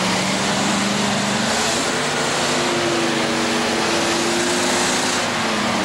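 Engine of a military Land Rover working hard as it ploughs through deep muddy water, over a steady rushing hiss of splashing water and mud. The engine holds a steady note, with the splashing strongest through the middle, and its pitch drops at the very end.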